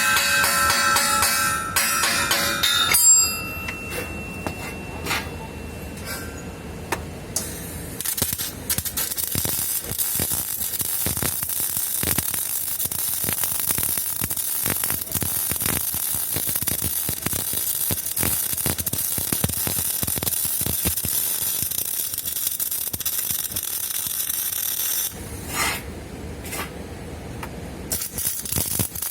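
MIG welding arc on a pipe-to-flange joint: a steady crackling sizzle with dense irregular pops. It stops at about twenty-five seconds and strikes again near the end. The first three seconds hold ringing, music-like tones.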